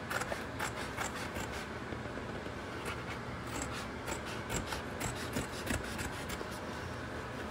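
A kitten scratching and digging in cat litter in a plastic litter box: irregular scratchy rasps in short spells, busiest near the start and through the middle.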